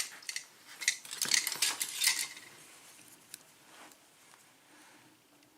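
Small metal parts of a Wilka euro cylinder lock clinking and clicking as it is handled and its top chambers opened, a quick run of clinks for about two seconds, then a few faint ticks.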